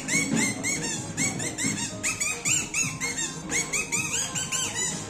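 Kathputli puppeteer's boli, a reed squeaker held in the mouth, giving a quick string of high, squeaky chirps that rise and fall, voicing the puppets, over lower music.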